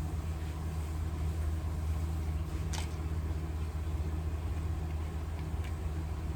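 Steady low hum, with one sharp click nearly three seconds in and a fainter click near the end.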